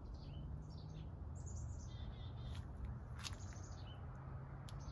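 Small birds chirping and tweeting in short scattered calls, over a low steady hum.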